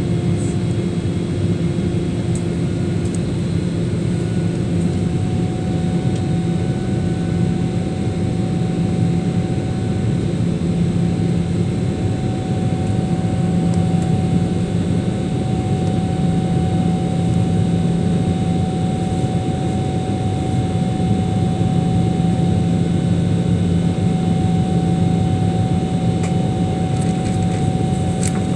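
Jet airliner's engines running steadily: a dense, even rumble with a few constant hums and whines on top and no change in pitch.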